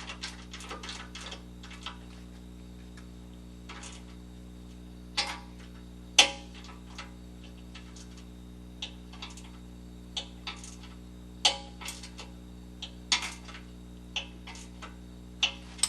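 Ratchet wrench clicking rapidly as the nut of a skid-plate carriage bolt is run down, the fast clicking stopping about a second and a half in. After that come scattered single clicks and metal knocks a second or so apart, the loudest about six seconds in, over a steady low hum.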